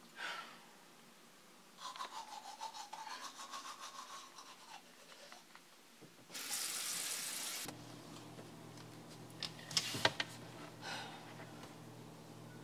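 Teeth being brushed with a manual toothbrush: a few seconds of quick back-and-forth scrubbing strokes, about six a second. A tap then runs for a second or so, followed by a low steady hum with a couple of sharp knocks.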